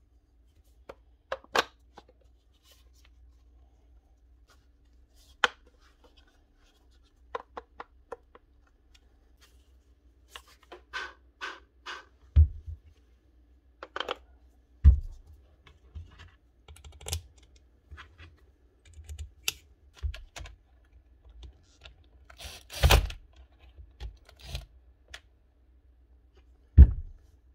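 Irregular plastic clicks, taps and scrapes from hands working on an opened Makita cordless angle grinder, with a few dull knocks of the tool being set down or pressed together. The motor does not run.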